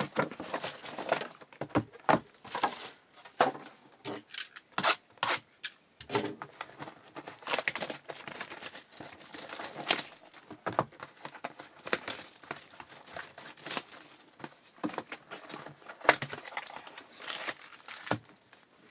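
Crinkling and tearing of plastic and foil wrapping as a box of trading cards and its packs are opened by hand: a run of irregular sharp crackles and rustles.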